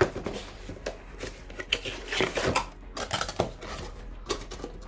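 Hands opening and handling a small cardboard figure box and its packaging: irregular taps, clicks and rustles of cardboard and plastic.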